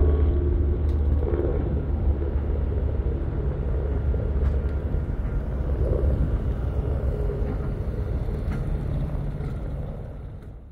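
Light propeller aircraft flying overhead: a steady engine and propeller drone over a low rumble, fading out near the end.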